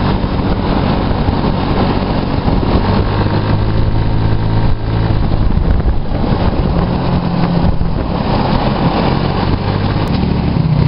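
Engine of a road-going buggy running steadily while driving, heard on board under a constant rush of wind and road noise. The engine note changes about halfway through.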